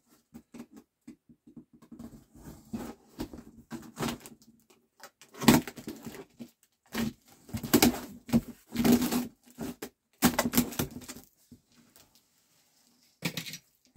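A large cardboard shipping box being handled and opened: irregular bursts of rustling, scraping and knocks, with short pauses between them.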